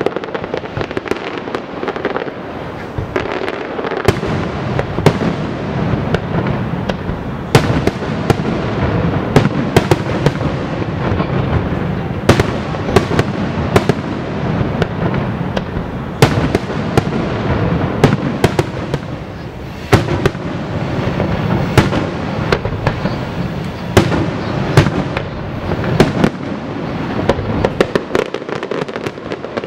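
Aerial fireworks shells bursting: a rapid run of sharp booms, often one or two a second and at times in quick clusters, over a steady rumble and crackle.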